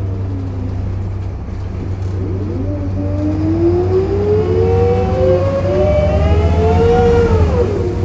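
Volvo B7RLE bus heard from inside the saloon, accelerating over a steady low engine drone, with a groaning tone that rises in pitch for about five seconds and then drops away sharply near the end.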